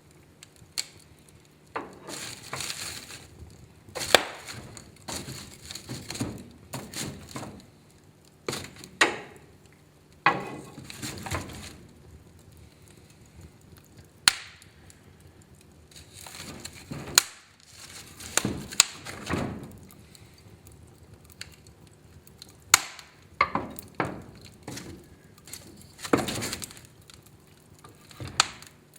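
Wood fire burning in a fireplace, crackling in uneven swells with sharp pops and cracks every few seconds.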